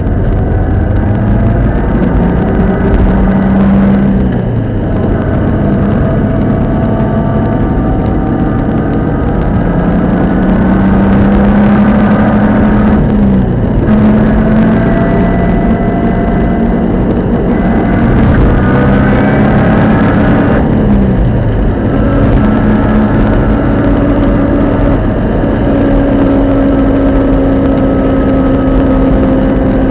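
Subaru Impreza GC8 under way: its flat-four engine note climbs in pitch and drops back several times as it is driven through the gears, with drivetrain noise underneath that the owner attributes to a faulty centre differential.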